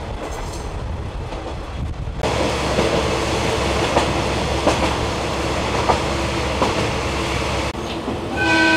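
KiHa 120 diesel railcar running along the line, heard from inside the car: a steady rumble of engine and rails that grows louder about two seconds in, with a few wheel clicks over rail joints. Near the end comes a short horn blast of about a second.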